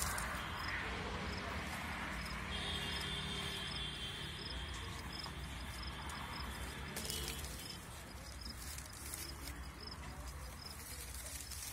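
Outdoor ambience with a short, high chirp repeating about every 0.7 s from a small insect or bird, and a held high whistle-like tone from about 2.5 s to 7 s. Soft rustle and crackle of plastic tying string and mango leaves as the string is wrapped around the graft.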